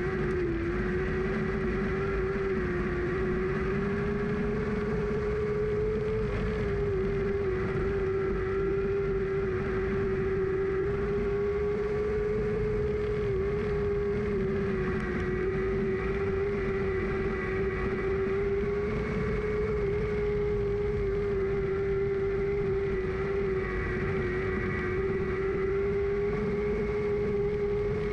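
Lightning Sprint car's engine heard on board at racing speed, held at an almost constant high pitch with only slight wobbles in revs.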